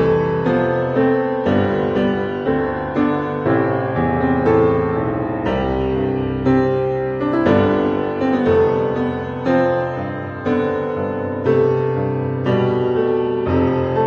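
Background instrumental music: a piano melody over chords, a new note struck about once a second.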